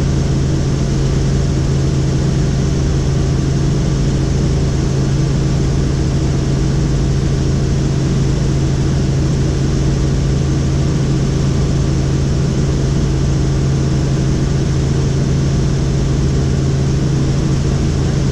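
Helicopter in flight: a steady, even drone with a strong low hum.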